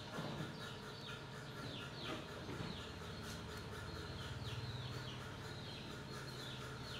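Small birds calling: a run of short chirps that fall in pitch, about two a second, over a low steady hum.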